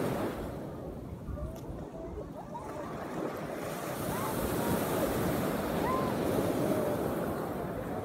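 Small waves breaking and washing up a sand beach, a steady surf wash that swells about halfway through. Wind rumbles on the microphone underneath.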